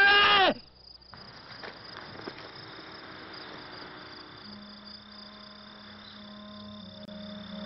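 A crow caws once, loud and harsh, then quiet outdoor ambience with a thin high insect-like tone. About four and a half seconds in, soft sustained soundtrack music notes fade in and build.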